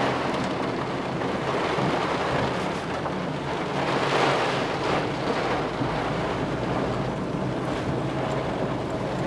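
Steady rushing noise of a car on the move: road and wind noise, with a faint low steady hum underneath.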